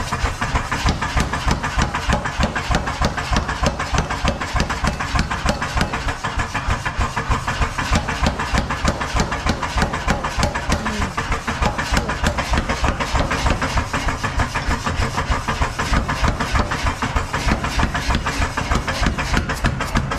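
Power hammer pounding hot iron in a fast, even run of metallic blows, the ram striking a handled top tool held on the red-hot bar.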